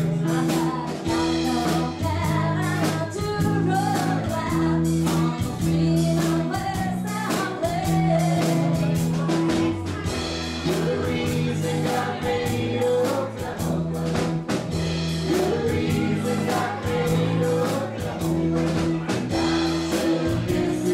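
Live country-rock band playing: electric guitar, bass and drums with a steady beat, and a woman singing the melody into a microphone.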